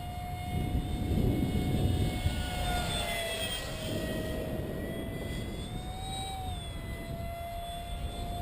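The 70mm five-blade electric ducted fan of an RC jet, driven by a Dr Mad Thrust 4000Kv motor, whining as the model flies. The pitch drops a little about three seconds in, then rises and falls again around six seconds.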